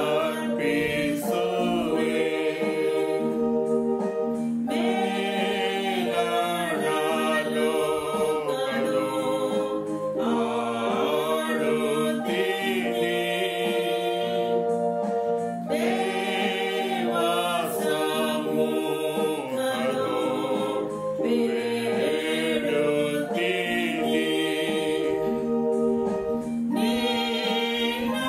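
A woman singing a Kannada Christian hymn over held electronic keyboard chords.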